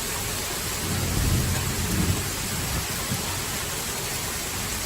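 Heavy downpour of rain hissing steadily, with a low rumble of thunder from about a second in, lasting around two seconds.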